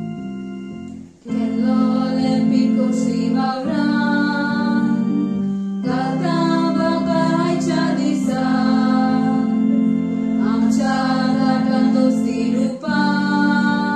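Girls' choir singing together in long phrases of held notes, with keyboard accompaniment; the singing breaks off briefly about a second in and again near the end.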